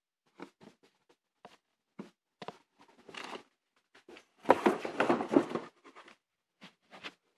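Rustling and handling noise of a phone being moved against clothing, with scattered soft taps and a louder stretch of rustling about four and a half seconds in.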